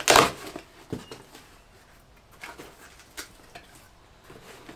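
A small parcel being torn open by hand: a short loud burst of tearing noise at the start, a click about a second in, then scattered faint rustles and clicks of packaging being handled.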